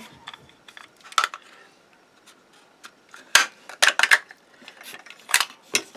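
Small metal clicks and clinks of a grip-screw tool working on a SIG P226 pistol frame as the grip screws are undone and the grip panels come off: one click about a second in, a quick run of several a little past halfway, and two more near the end.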